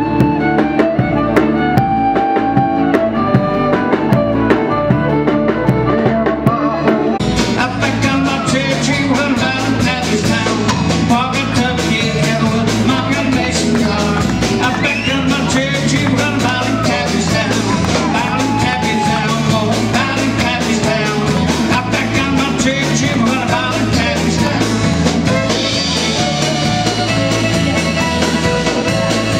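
Live band music: a fiddle plays lead over bass and rhythm, and about seven seconds in the full band with drums and cymbals comes in, with a voice singing.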